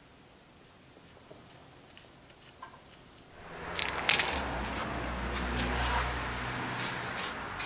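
Aerosol spray can spraying in short hissing bursts, about three near the end at two or three a second. Before them, from about three seconds in, a steady hiss with a low rumble and two sharp clicks.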